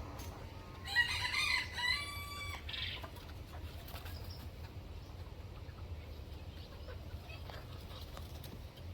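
A rooster crowing once, about a second in, its call ending on a drawn-out held note, over a low steady hum.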